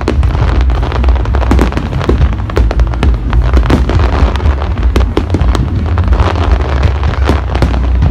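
Fireworks display: a rapid, irregular string of sharp bangs and crackles, several a second, over a continuous low rumble.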